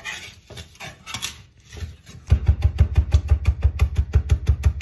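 A Global chef's knife working minced garlic on a wooden Boos Block cutting board: scraping and light taps at first, then from about halfway a fast, even chopping, about six strokes a second, each a dull thud on the wood.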